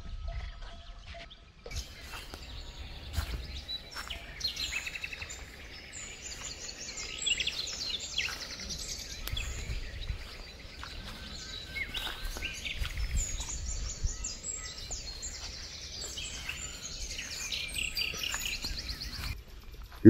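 Several birds singing and calling at once, many short overlapping chirps and trills, starting about two seconds in and carrying on throughout, over a faint low rumble.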